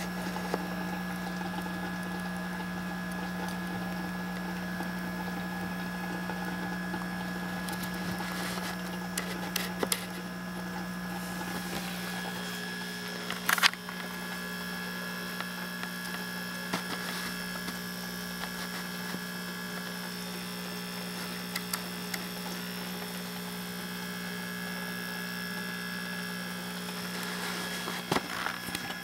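Steady electric hum of an aquarium air pump, with a few sharp knocks, the loudest about halfway through.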